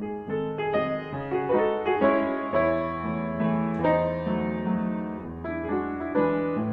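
Background piano music, a gentle melody with notes changing every half second or so.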